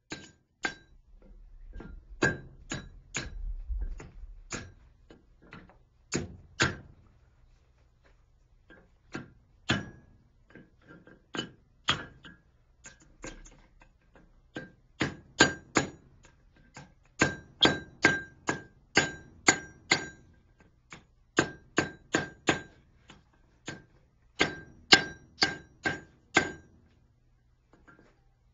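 Blacksmith's hammer striking a steel fishing gig on an anvil, each blow ringing with a clear metallic tone. The blows come in runs of several, about three a second at their quickest, broken by short pauses and some lighter taps.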